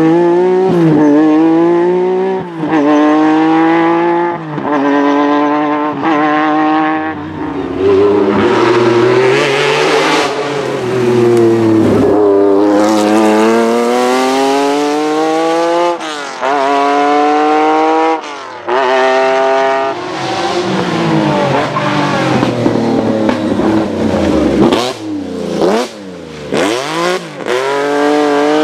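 Lancia Stratos rally car's Ferrari Dino V6 running hard through the gears: the pitch climbs steeply, breaks off at each gearshift or lift, and climbs again, several times over. Near the end there are a few quick drops and blips in pitch.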